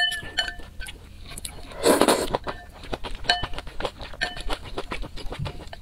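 Chopsticks clinking against a white porcelain bowl of spicy noodle soup, each tap leaving a short ringing chime, mixed with close-up wet chewing clicks. About two seconds in there is a short, loud slurp.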